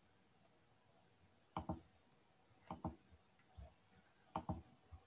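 Three pairs of sharp clicks about a second apart, each pair a computer mouse button pressed and released.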